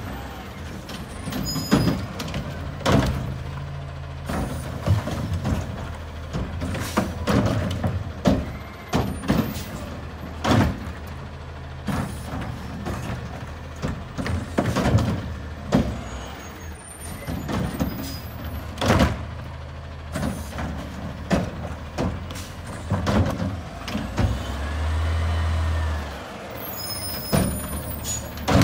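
Front-loading garbage truck with a Curotto-Can cart arm working a row of carts: the diesel engine runs underneath while carts and lids bang and thump again and again as they are grabbed and dumped. Near the end the engine revs for a second or two, then air brakes hiss.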